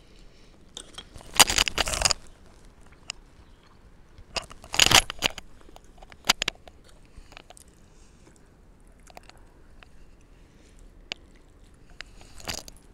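Close-miked eating of ramen noodle soup: chewing and mouth sounds, with two loud bursts about one and a half and five seconds in and occasional small clicks between.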